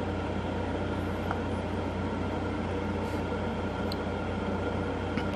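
Steady low hum of a fan or similar machine running in the room, with a couple of faint ticks as rock chips are moved by hand in a plastic pan.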